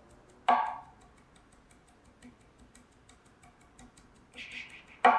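Nakiri knife mill-chopping parsley on an end-grain wooden cutting board: a rapid, even run of light blade taps on the board, with one heavier knock about half a second in.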